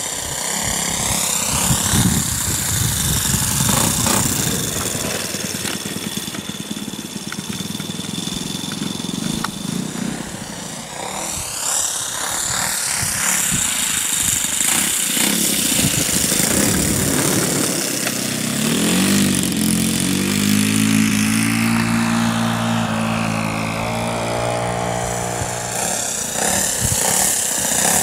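Saito FG-30 30cc four-stroke gasoline engine in a radio-controlled Hawker Hurricane model, running in flight. Its note rises and falls in pitch as the plane flies past and turns away, several times.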